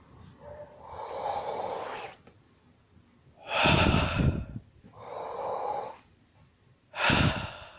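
A person breathing slowly in and out twice: each breath is a softer rushing sound followed by a louder, fuller one, with short pauses between.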